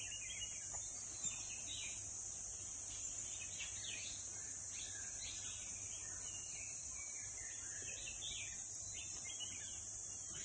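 Forest ambience: a steady high-pitched drone of insects, with scattered short bird chirps.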